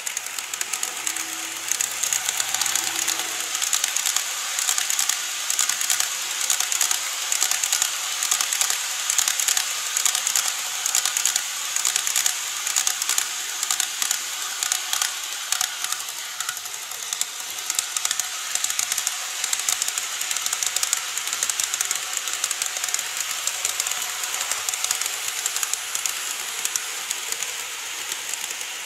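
Model train running along plastic viaduct track: a steady clatter of small wheels clicking rapidly over the rail joints, with a light hiss of wheel and motor noise.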